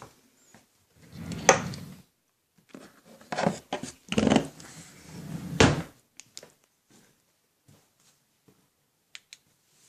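Several dull thumps and knocks of things being moved and handled in a small room, with two sharp clicks, one about a second and a half in and one just before six seconds in, then a few faint ticks.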